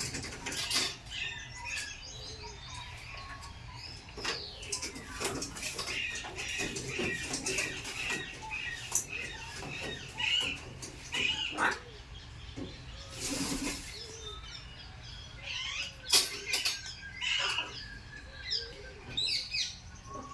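Parrots chirping and calling in short, repeated notes, with scattered clicks and a brief rustle of wings about two-thirds of the way through.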